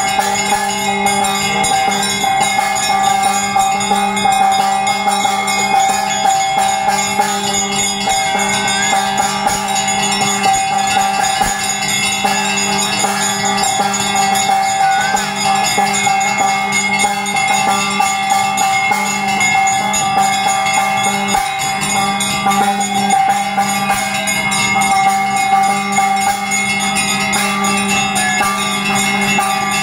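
Puja bells rung continuously at a Hindu shrine: rapid metal strokes blend into a steady, ringing clangor with no pause.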